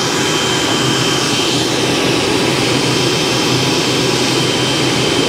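Blower fan of a Horsch pneumatic seed drill running steadily, a constant rushing noise with a thin high whine over it.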